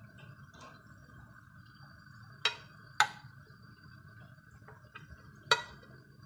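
A metal spoon clinking against a glass bowl while scooping chicken strips: three sharp clinks, two close together about midway and one near the end, with a few fainter taps between.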